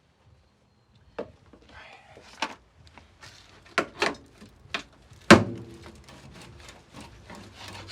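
Irregular knocks and taps from hand tools against metal bodywork. One heavy bang about five seconds in is the loudest and rings on briefly.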